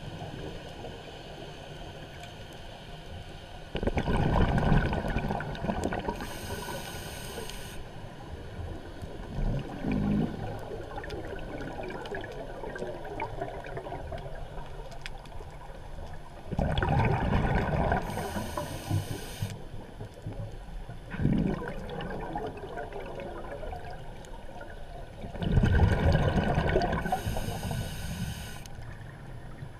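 Scuba diver's regulator exhaust: three bursts of exhaled bubbles, each about three seconds long and about ten seconds apart, with a short, quieter inhalation between them.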